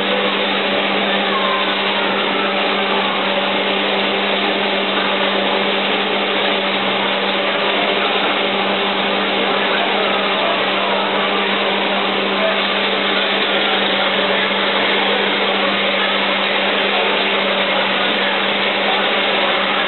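Steady machine hum and rushing noise with a constant low drone, unchanging throughout, from a running motor or fan in a candy kitchen; faint voices underneath.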